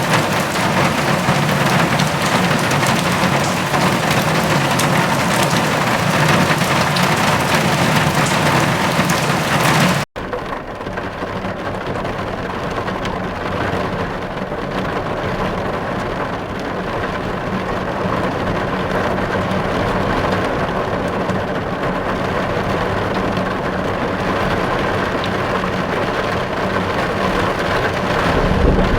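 Heavy rain falling steadily as an even hiss. About ten seconds in it cuts off sharply and switches to a softer, duller rain, and a low rumble of thunder rises near the end.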